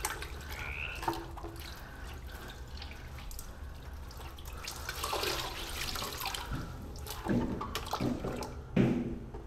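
Hands washing in a plastic basin of water, splashing and sloshing irregularly.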